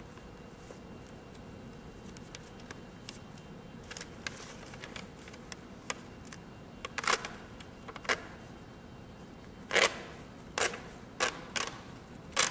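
A folded sheet of paper being unfolded and handled, crackling and rustling in short sharp bursts that start about a third of the way in and grow louder and more frequent in the second half.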